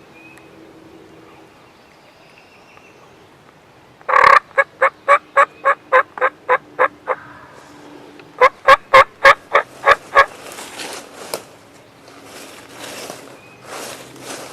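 Loud hen turkey yelping: a series of about a dozen evenly spaced yelps, about four a second, then after a short pause a second series of about eight. Softer rustling follows near the end.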